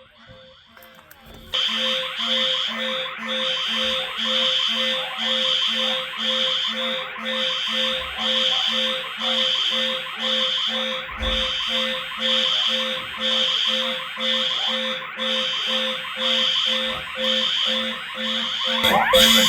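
Several fire alarm horns and speaker strobes sounding together. They start suddenly about a second and a half in as a loud, evenly repeating pulse, about two a second, and grow louder near the end as another tone joins.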